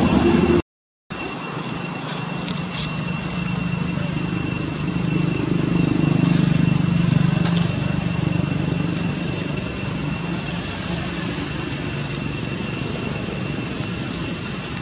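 Steady outdoor background with a distant engine drone that swells a few seconds in and slowly eases off, and two thin steady high tones. The sound cuts out completely for half a second near the start.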